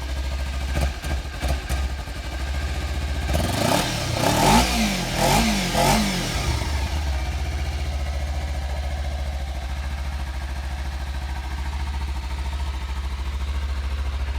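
2014 Kawasaki Ninja 300's parallel-twin engine running through its stock exhaust. It idles with a few short knocks about a second in, is revved in three quick blips a few seconds in, then settles back to a steady idle.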